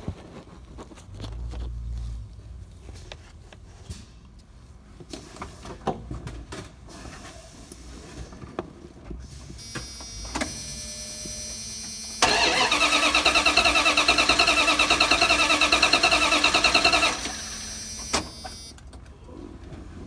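The 1997 Dodge Ram B2500's 5.2-litre V8 cranked over by its starter for about five seconds in an even pulsing rhythm, without firing: the distributor is disconnected for a compression test.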